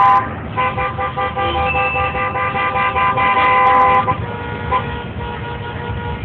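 Car horns honking together. A short blast comes first, then several horns of different pitches sound at once in a long held chord for about three and a half seconds, and a single quieter horn keeps sounding after that.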